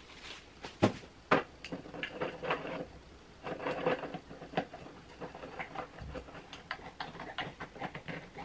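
White timber stool legs being handled and screwed by hand into the base of an upturned stool: two sharp knocks about a second in, then a run of small clicks, taps and scraping as a leg is turned onto the screw at its top.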